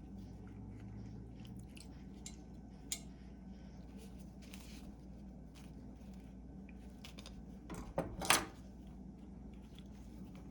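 A fork clicking and tapping against a jar while slices of lemon and ginger are pushed about in it, with a short scraping rattle about eight seconds in.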